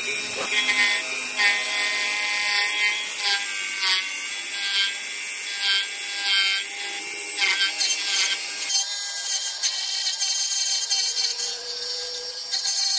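Metal being cut on a lathe: a cutter spinning in a drill chuck scrapes into a metal part held in the four-jaw chuck. The cutting noise is loud and continuous, with several steady ringing tones that shift about two-thirds of the way through.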